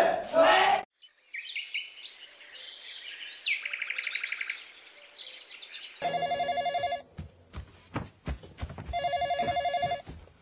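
A desk telephone ringing twice, each ring about a second long and about three seconds apart. Before the rings, birds chirp and trill, and a crowd's shouting cuts off suddenly right at the start.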